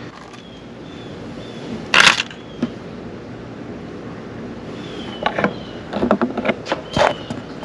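Fishing lures and clear plastic tackle box compartments clicking and rattling as they are handled and sorted, with one louder clatter about two seconds in and a run of light clicks near the end.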